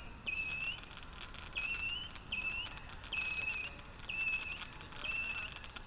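50-shot Super Saturn missile battery firing: a string of whistling missiles, each a high, fairly steady whistle about half a second long, about one a second, with small pops between.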